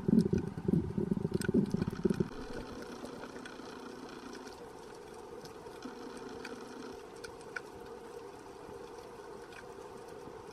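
Sea noise heard underwater: a boat engine's steady drone, with scattered sharp clicks. The first two seconds hold a loud churning rumble that then drops away.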